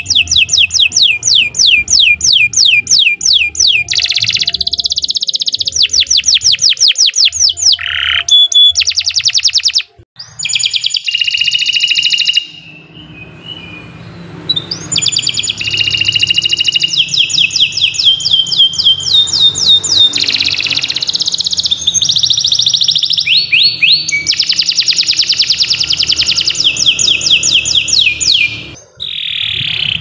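Domestic canary singing a long, loud song of fast repeated notes and trills in quick succession, breaking off briefly a few times.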